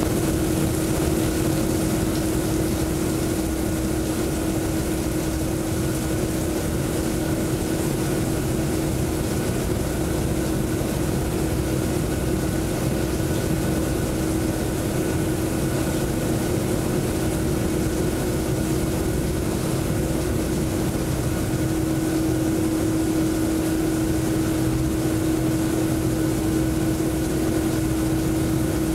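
Steady mechanical hum with one constant mid-pitched tone and a fainter higher one, over an even rushing noise of falling water, from a water-strobe rain installation running.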